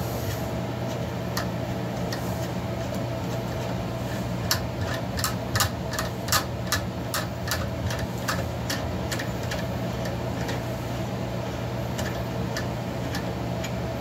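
A hand tap in a T-handle wrench being turned through a metal piece clamped in a bench vise, giving a run of sharp clicks, about three a second, from about four to nine seconds in, over a steady machine hum.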